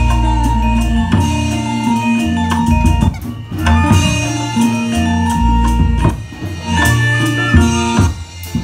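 Live Reog Indramayu ensemble music played loud through a PA sound system: drums over held melodic lines with a heavy bass.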